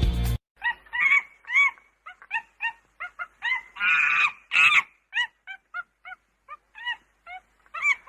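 A run of short animal calls, a couple or more a second, each rising and falling in pitch, with two louder, harsher calls near the middle.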